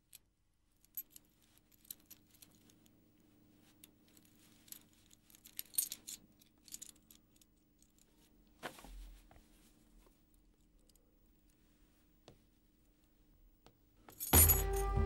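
Faint jingling and small clicks of a bunch of keys being handled and taken quietly from a pocket, over a low steady hum. Background music comes in loudly near the end.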